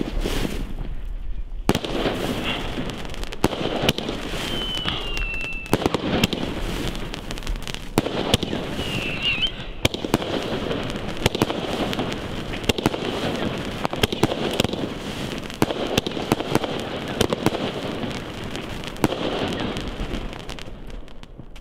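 Argento Eisblume 13-shot 30 mm firework battery firing: a rapid series of sharp launch bangs and star bursts, with dense crackling between them. It tails off near the end as the last shots finish.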